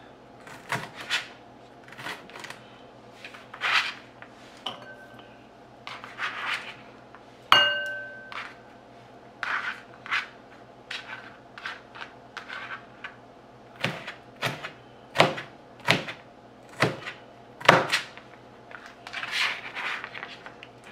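Chef's knife chopping bell peppers on a plastic cutting board: irregular sharp knife strikes on the board, with one clink about seven and a half seconds in that rings briefly, and a short scrape near the end as the cut pieces are gathered.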